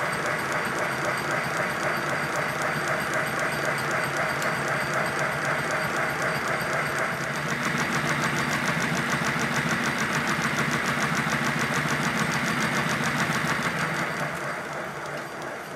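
Live-steam model of the locomotive Lion running in steam on the bench: steady hissing steam with the clatter of its motion and exhaust beats. The beat turns rapid and even from about halfway, then eases off near the end.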